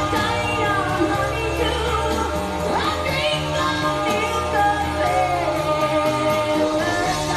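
Background music: a song with a singing voice over a steady bass line.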